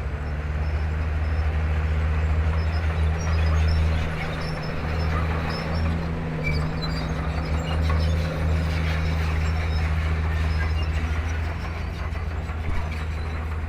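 Diesel engine of a Komatsu D31P bulldozer running steadily at work: a deep, low engine hum that swells and dips a little in level.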